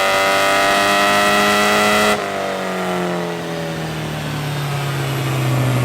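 Porsche 944's 2.5-litre 8-valve four-cylinder engine under full load on a dyno, its pitch slowly climbing. A little over two seconds in the throttle shuts, the note drops sharply, and the revs fall away steadily toward a lower, steady note.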